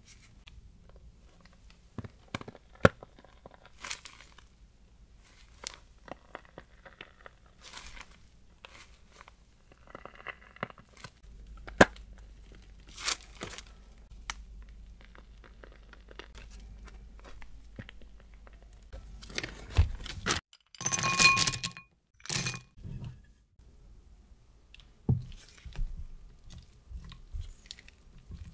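Close-up kitchen handling sounds: small crunches and clicks as a piping nozzle is pushed into crisp baked choux eclair shells. About three-quarters of the way through comes a brief loud clatter and rustle. Near the end a spatula taps and scrapes through hard coating-chocolate wafers in a ceramic bowl.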